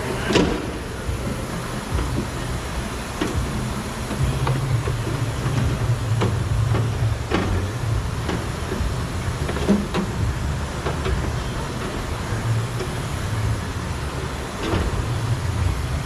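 Scattered clicks and knocks of plastic and metal from hands working a pickup's inner door carrier panel loose inside the door shell, over a steady low hum.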